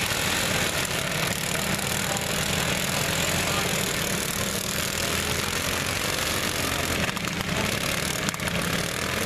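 Several lawn mower engines running together in a demolition derby, a steady drone, with a few short knocks in the last couple of seconds.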